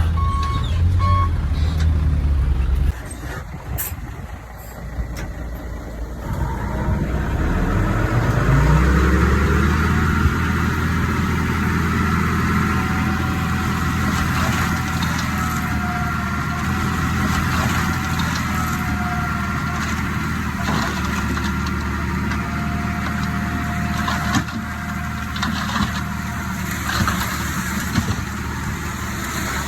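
A reversing beeper beeps briefly over a running diesel engine. After a drop in level, a heavy diesel engine revs up over a few seconds and then runs steadily and loudly, with a faint whine above it.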